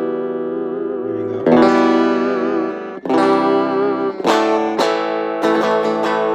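Electric guitar, a Stratocaster with single-coil pickups, played loud through a small battery-powered Lekato practice amp: held chords struck about every second and a half, one wavering in pitch, then a run of quicker strums in the second half.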